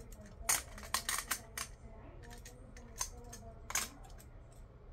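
Hard plastic parts of a Cosmic Fury Megazord action figure clicking against each other as they are handled and fitted together: a quick run of sharp clicks in the first two seconds, then two more near three and four seconds in.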